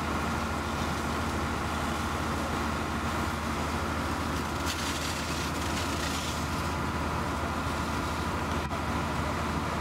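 Fire engine running steadily to drive its pump for the hose lines, a constant engine drone with a steady hum. A short hiss comes about five seconds in.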